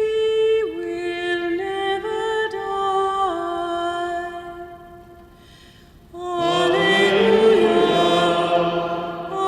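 Chanted sung acclamation before the Gospel. A solo voice sings an unaccompanied chant line with long held notes that step up and down, then fades out about four and a half seconds in. After a short pause, a fuller group of voices answers with the chant, louder.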